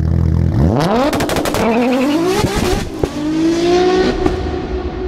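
Car engine revving and accelerating, its pitch climbing in two or three rising sweeps like gear changes before settling on a steadier note. A rapid run of sharp clicks comes about a second in, and a single knock about three seconds in.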